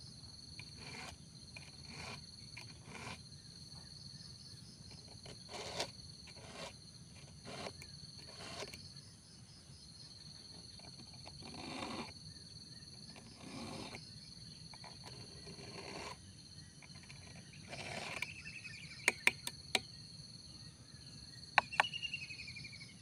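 A round file rasping across the cutters of a chainsaw chain, in strokes roughly one a second with pauses, and a few sharp metallic clicks near the end. Insects buzz steadily behind it.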